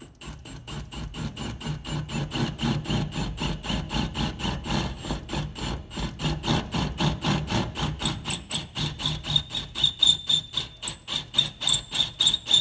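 Cordless drill boring out a pilot hole in a Land Cruiser's sheet-metal door, the motor and bit running with an even pulsing about four times a second. A high whine rides on it, stepping up in pitch and growing louder in the second half.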